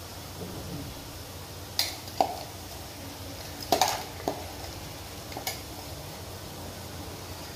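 A steel spoon clinking and tapping against the kadhai and utensils, about half a dozen short sharp clinks scattered through the middle, over a faint steady sizzle of chopped onions frying in oil.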